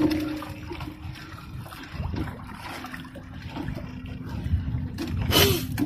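Wet fishing net being pulled aboard a small boat by hand, water trickling and dripping off the mesh, over a faint steady hum. A brief louder rush comes near the end.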